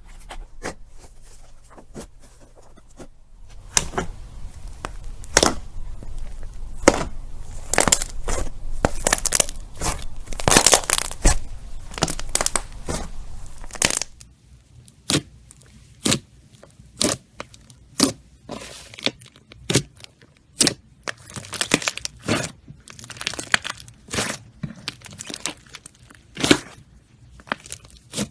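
Slime being worked by hand, giving sharp crackling and popping clicks. It crackles densely for about ten seconds, then settles into single pops about once a second.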